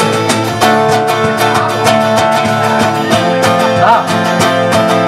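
Live band playing an instrumental passage: guitars strumming chords over a steady beat.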